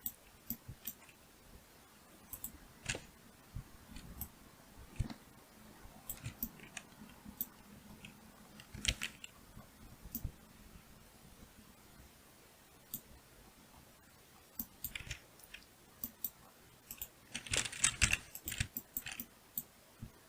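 Scattered clicks and taps of a computer keyboard and mouse, with a quicker flurry of keystrokes near the end.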